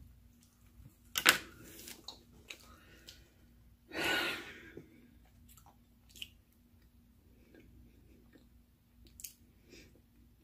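Close-miked mouth sounds of a person chewing food, with a sharp click about a second in and a short breathy rush around four seconds in. A faint steady hum runs underneath.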